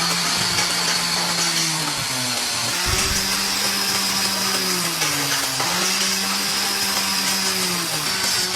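A motor-driven machine running steadily with a humming drone. Its pitch sags briefly a few times, as if under load, with a low thump about three seconds in.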